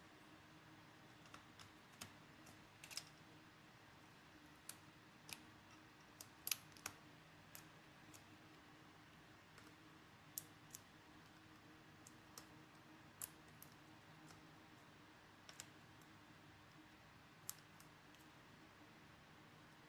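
Scattered, irregular small clicks and taps of tools and parts being handled while a MacBook Pro laptop is taken apart, over a faint steady hum.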